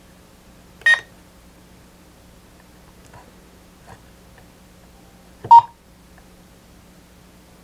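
Key beeps from the VR-6600PRO dual band mobile radio's control head as its menu buttons are pressed: a short higher beep about a second in, then a louder, lower beep about five and a half seconds in, with faint button clicks between.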